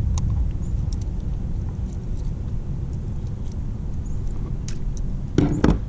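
Steady low rumble of wind on the microphone, with scattered small clicks and two louder knocks near the end from fishing pliers and a hooked largemouth bass being handled.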